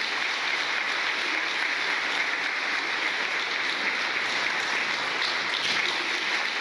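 Dense, steady applause, many claps blending into one unbroken sound.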